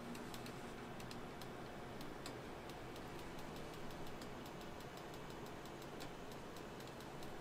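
Irregular sharp ticks and crackles, a few a second, over a steady low hum, from a hot electric crepe griddle as batter is poured onto it.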